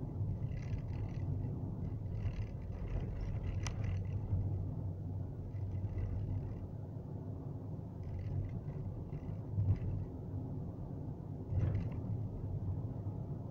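Low, steady rumble of a car's engine and tyres while driving along a road, with a single sharp click a few seconds in and brief patches of higher hiss.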